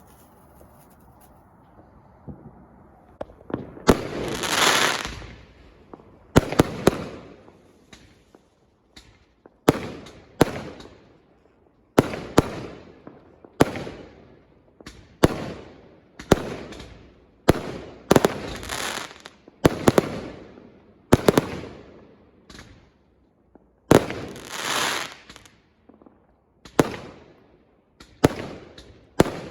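Aerial fireworks bursting in a long series, a sharp bang every one to two seconds from a few seconds in, each trailing off in a rolling echo. A few of the bursts swell into a longer rushing crackle.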